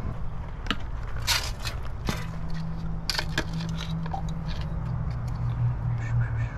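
Hard plastic PVC drain fittings clicking and scraping as they are handled, and the cap of a PVC primer can being twisted off, a scatter of short clicks. A steady low hum runs underneath.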